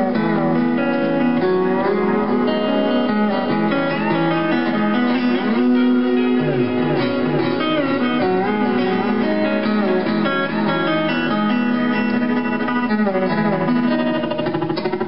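Lap steel guitar played with a slide bar: picked notes ringing over a sustained low tone, with pitches gliding as the bar slides, including a run of downward slides about halfway through.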